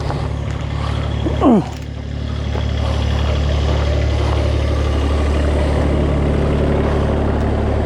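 A vehicle engine running steadily, louder from about two and a half seconds in. A short falling squeal sounds about a second and a half in.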